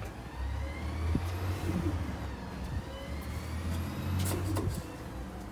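A motor vehicle's engine running with a low drone that builds just after the start and dies away near the end.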